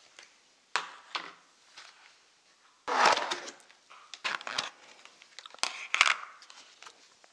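Thin plastic takeout containers and lids being pried open and handled: a run of short crackles and clicks, the loudest cluster about three seconds in.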